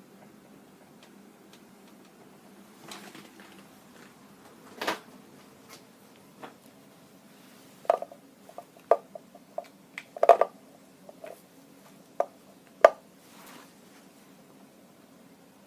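A scattered series of short light clicks and knocks from hard objects being handled, about a dozen in all, bunched between about 8 and 11 seconds in, with single ones near 5 and 13 seconds in.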